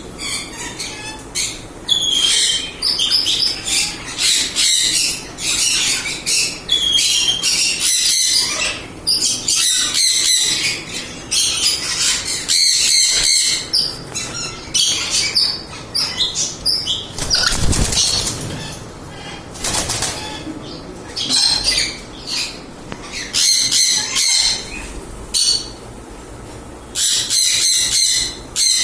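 Mealy Amazon parrot calling over and over: a long run of loud, high squawking and chattering calls, each up to about a second long with short pauses between them.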